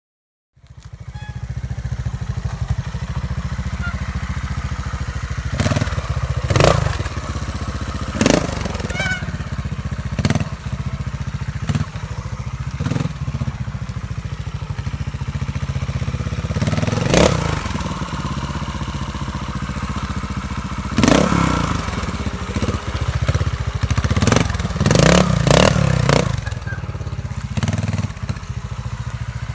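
Montesa Cota 4RT trials bike's four-stroke single-cylinder engine running low and steady, with about a dozen short throttle blips and sharp knocks as the bike is hopped onto and over logs. The sound starts about half a second in.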